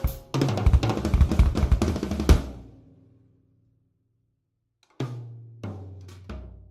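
Drum kit played in a quick run of tom and drum strikes that stops about two seconds in and rings away. After a couple of seconds of silence, single tom strikes follow, each with a short, low, pitched ring.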